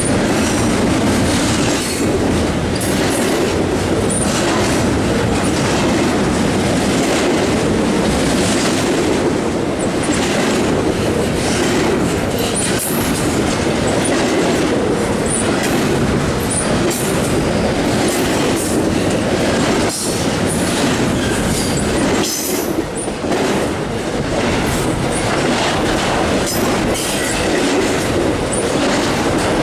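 A long intermodal freight train of double-stack container cars and trailers rolling past at speed: a steady wheel rumble with rapid clicks over the rail joints and brief high squeals from the wheels.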